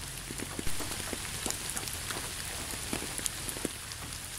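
Steady rain falling: an even hiss with many separate drops heard through it.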